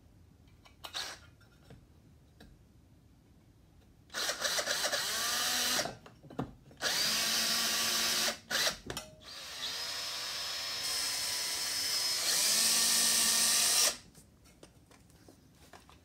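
DeWalt cordless drill driving screws through a metal electrical box into wood, running in several bursts of one to three seconds from about four seconds in. Its motor pitch drops under load as the screws bite.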